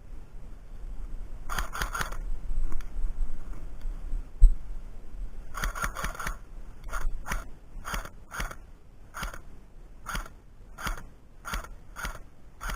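Airsoft gun firing: sharp mechanical clacks, first in two short bursts, then single shots about every half second to a second. One low thump sounds about four and a half seconds in.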